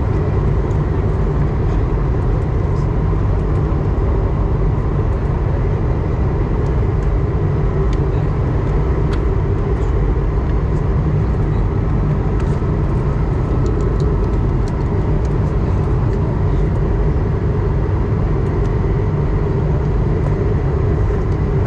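Steady in-flight cabin noise of an Airbus A220-100 airliner: an even, low rush of airflow and engine noise that holds unchanged, with a few faint clicks near the middle.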